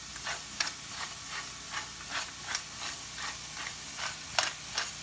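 Hand pepper mill being twisted to grind black pepper, giving a run of quick ratcheting clicks about two or three a second, over the steady sizzle of sautéing pork, garlic, onion and tomato in the pan.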